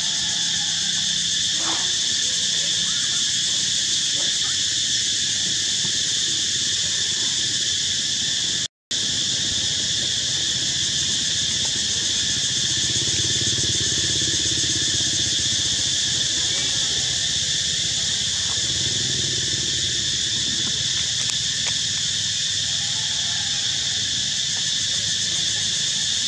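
Steady, shrill insect chorus sounding at several high pitches at once. It cuts out for an instant about nine seconds in.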